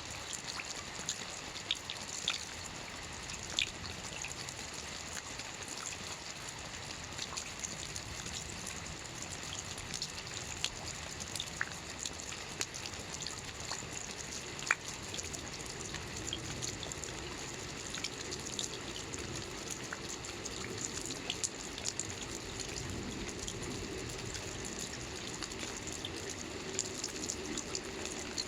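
Steady rain with scattered individual drops ticking sharply. About halfway through, a lower steady rush of running water builds beneath it.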